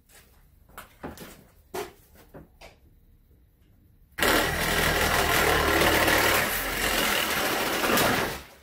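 Handheld cordless power saw running steadily as it cuts through 1¼-inch PVC pipe, starting about four seconds in and stopping shortly before the end. A few light handling clicks come before it starts.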